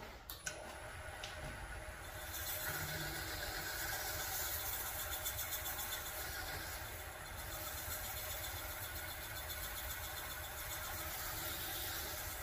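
Wood lathe started with a click about half a second in and running steadily, spinning an off-center block. From about two seconds in, a steady hiss of sandpaper held against the spinning wood inside its hollow.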